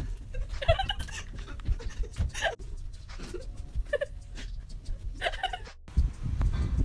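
A few short, breathy stifled laughs, spaced about a second or more apart, over low rumbling handling noise from a phone's microphone.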